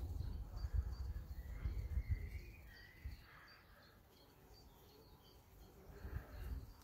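Garden birds chirping and calling, with gusts of wind rumbling on the microphone through the first half and again near the end.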